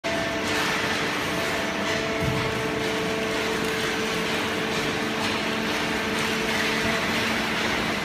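Automatic horizontal hydraulic baler and its infeed conveyor running, a steady machine hum with several held tones over a hiss.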